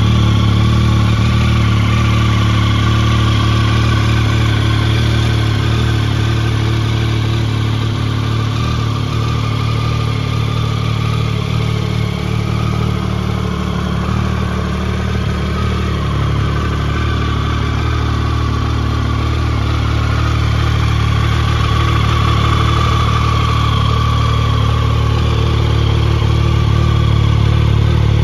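Triumph Tiger 1050 Sport's 1050 cc inline three-cylinder engine idling steadily, heard close to the exhaust, with no revving.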